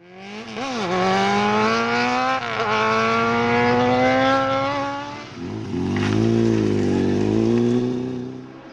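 Sport motorcycle engine accelerating hard, its pitch climbing through the gears with an upshift about two and a half seconds in. Past the middle it drops lower, swells once more and fades near the end.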